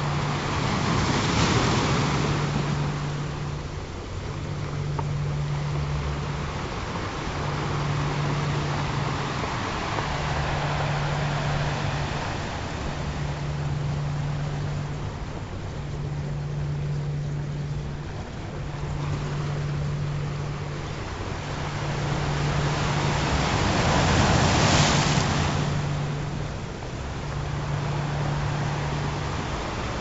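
Ocean surf washing in and out, with bigger waves breaking near the start and again late on. Under it a low tone pulses on and off about every two and a half seconds.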